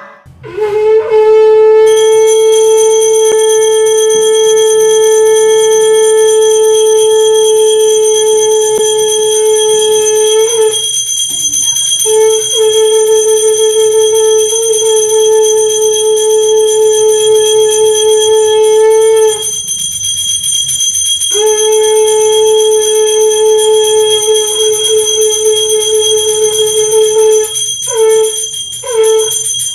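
Conch shell (shankha) blown in long, steady held blasts: three long notes of several seconds each, then a run of short blasts near the end. A high, steady ringing tone runs underneath throughout.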